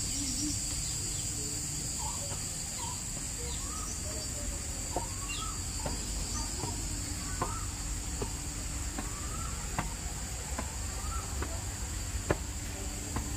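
Birds chirping in short, rising calls every second or so over a steady high-pitched insect drone, with a few sharp taps.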